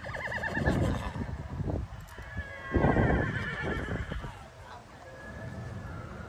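Horse whinnying twice: a short call right at the start, then a longer, louder one about two seconds later.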